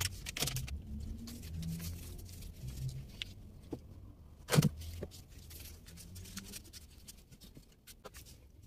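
Small clicks and rustling as items are handled and moved around a cupboard, with one sharp knock about halfway through.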